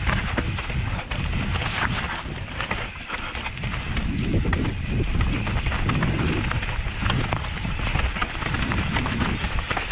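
Mountain bike riding fast downhill over rocks and roots: tyres rolling over dirt and stones with a steady rumble, the bike rattling and knocking sharply over the bumps, and wind buffeting the microphone.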